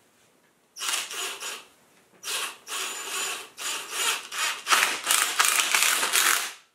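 Cordless impact driver hammering 1¼-inch T25 construction screws into pine boards. It rattles in about four bursts with short pauses, starting about a second in.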